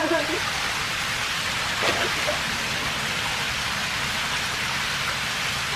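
Rock waterfall pouring into a pond, a steady rushing splash of water driven by two 3,200-gallon-per-hour pumps.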